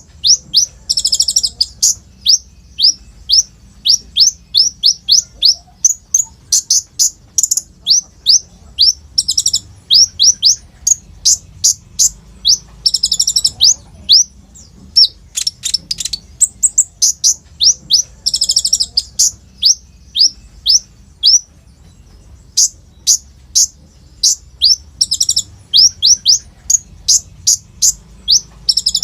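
Kolibri ninja (brown-throated sunbird) in full song. It sings a fast, loud string of short, high notes, each sliding downward, broken about every four to six seconds by a brief, dense, rattling trill.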